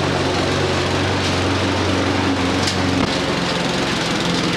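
Gardenline 140cc petrol lawn mower with a Briggs & Stratton engine running steadily while cutting grass, its note shifting slightly about three seconds in.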